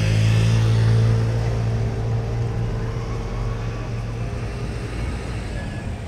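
Engine of a passing canal boat running with a steady low hum. It is loudest in the first second or two, then slowly fades as the boat moves off.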